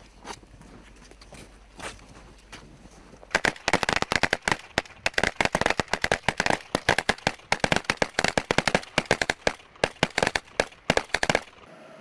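Rifle fire from several soldiers: many sharp shots in fast, overlapping bursts, starting about three seconds in and stopping abruptly shortly before the end.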